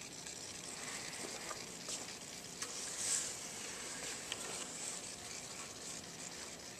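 Faint steady hiss with a few light clicks, about two and a half and four and a quarter seconds in, and a brief rustle about three seconds in.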